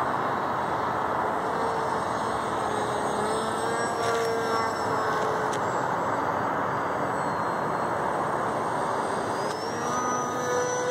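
Small electric RC plane's brushless outrunner motor and 8x6 propeller whining in flight. The pitch sinks and rises a few times, over a steady rushing hiss.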